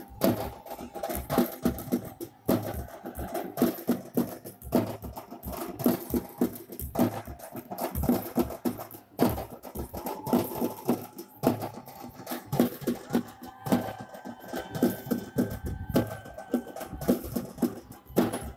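Tamil village festival drumming for a saami aattam deity dance: fast, loud, driving drum strokes, with a steady held tone sounding over the drums for a few seconds in the second half.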